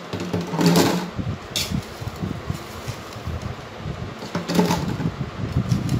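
A metal spoon scooping oily mango pickle out of an aluminium pot and tipping it into a plastic container: irregular scraping, knocking and squelching, with louder scrapes about a second in and again after four seconds.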